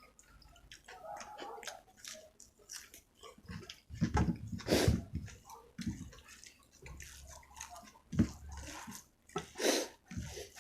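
Close-miked eating sounds: wet chewing and smacking of rice with chicken gravy, with many small mouth clicks and a few louder squelchy mouthfuls about four seconds in and again near the end.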